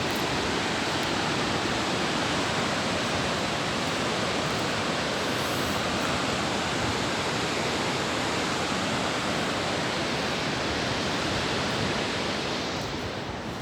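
Steady, even rushing of water, easing off slightly near the end.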